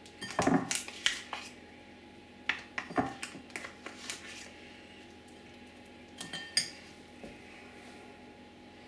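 Metal spoon clinking and scraping against a foil tray and a ceramic bowl as crumble is served out, in three short bunches of clinks.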